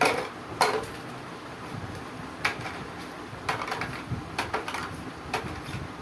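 A series of irregular light clicks and knocks, about eight in all, as cards and small sorting items are handled and set down.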